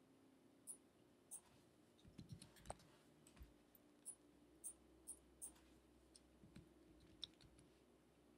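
Faint, scattered clicks of a computer mouse and keyboard keys, about a dozen sharp taps at uneven intervals, with a small flurry about two seconds in, over quiet room tone.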